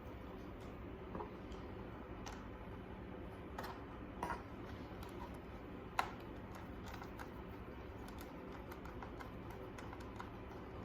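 Scattered light clicks and taps of hands and tools handling a laptop's plastic case, with a sharper click about six seconds in.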